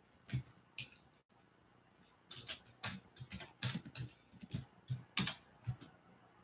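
Computer keyboard typing: a couple of isolated keystrokes, then a quicker, irregular run of faint key clicks from about two seconds in.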